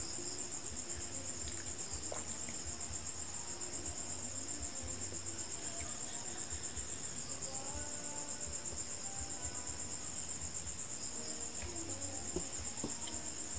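Crickets trilling: a steady, high, rapidly pulsing chirr that never lets up.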